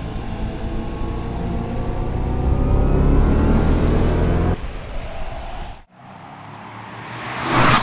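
Mercedes-AMG EQS 53 electric sedan accelerating, its drive sound a stack of steadily rising tones that cuts off abruptly about four and a half seconds in. After a brief drop-out, a car passing by swells to a loud whoosh near the end.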